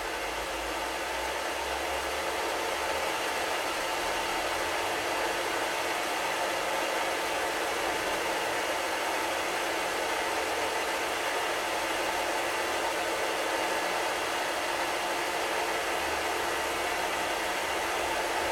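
Small bench-top metal lathe running under power feed, its motor and gear train giving a steady whir, while a carbon steel cutter takes a light four-thousandths-of-an-inch shaving cut off a wax phonograph cylinder.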